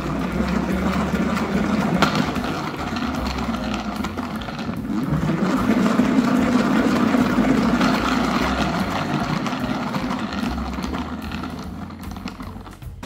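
Hand-cranked salad spinner spinning washed arugula dry: a steady mechanical whir that swells toward the middle and dies away near the end as the spinning slows.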